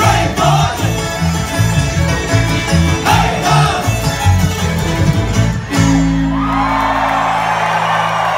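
A string band of fiddle, banjo, acoustic guitar and upright bass playing fast bluegrass-style music with shouted vocals. A little over halfway through, the band stops the rhythm and holds a final ringing chord while the crowd cheers.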